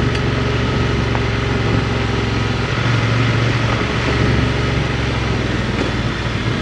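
Adventure motorcycle's engine running steadily at low road speed on a gravel climb, with a constant low hum and road and wind noise over it.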